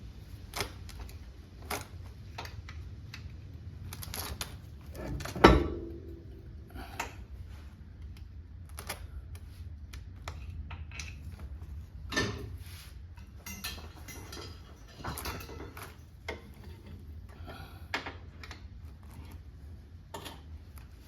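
Scattered mechanical clicks and knocks, like tools and metal parts being handled, over a steady low hum, with one much louder knock about five and a half seconds in.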